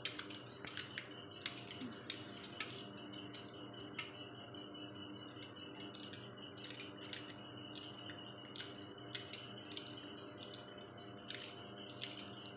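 Green chillies being sliced by hand with a small knife over a steel plate: irregular sharp clicks, about one or two a second, as the blade cuts through and the pieces drop onto the metal. A faint steady hum runs underneath.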